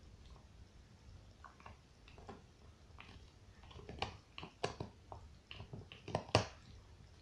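Dog gnawing on a bone: irregular clicks and crunches of teeth on bone. They are sparse at first, then come thicker and louder from about halfway, with the loudest crunch near the end.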